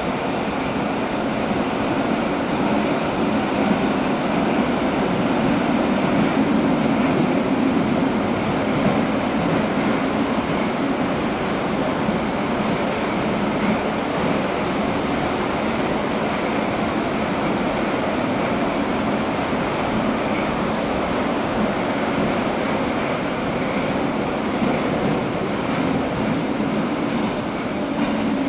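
Metro train running through a tunnel, heard from inside the carriage: a steady rumble and rush of wheels and motors, swelling slightly a few seconds in.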